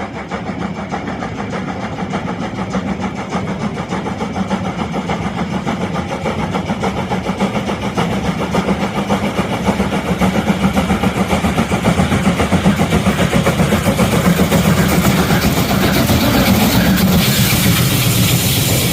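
Diesel locomotive engine running with a rapid, even throb, growing steadily louder.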